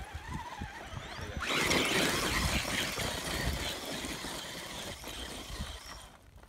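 Electric RC rock crawler climbing a steep hill of loose dirt and rock, with drivetrain whine and tires spinning and throwing gravel. The noise swells about a second and a half in and fades near the end as the crawler pulls away.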